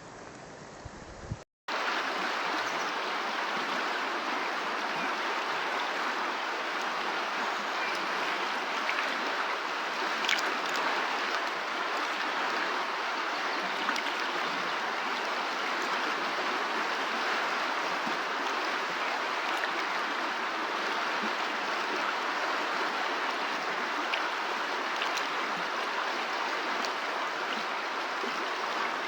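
River water flowing: a steady rush of running water that starts after a brief cut about a second and a half in.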